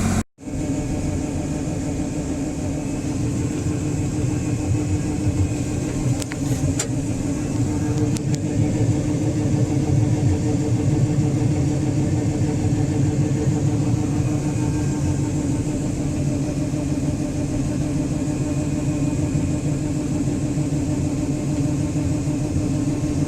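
Farm machinery engine running steadily: a continuous low hum, with a few faint clicks about six to seven seconds in.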